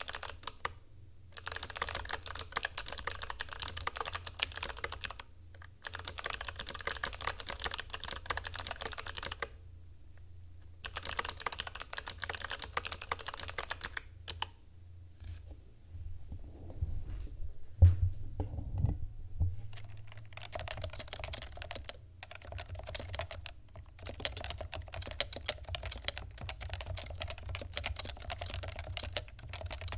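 Typing on a keyboard with Kailh Box Jade clicky switches in three bursts of sharp, crisp clicks. Around the middle come a few heavy thumps. After that comes typing with a deeper, duller keystroke, on Topre switches.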